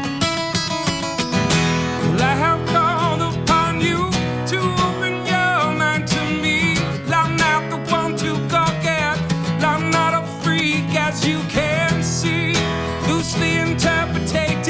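Acoustic guitar instrumental break: strummed chords under a lead melody played with string bends and vibrato.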